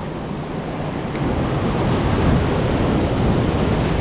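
Ocean surf breaking and washing against the rocks of a jetty, with wind buffeting the microphone; the rush of water swells about a second in and stays loud.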